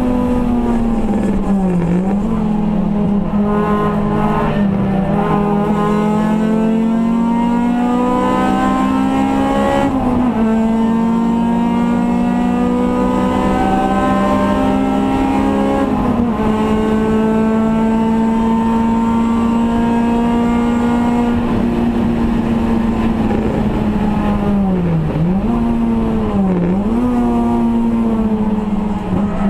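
Race car engine heard from inside its stripped cabin, running hard at high revs. Its pitch climbs slowly through long pulls, with small steps about a third and halfway through that mark upshifts. Brief sharp dips in revs come about two seconds in and twice near the end, as the driver lifts and shifts down for corners.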